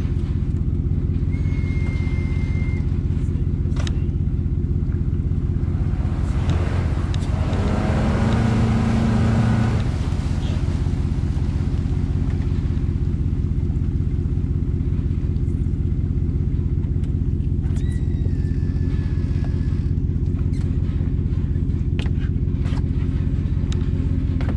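Steady low rumble of a pickup truck towing a bass boat on its trailer, heard from the boat, with a louder swell for about two seconds starting around eight seconds in.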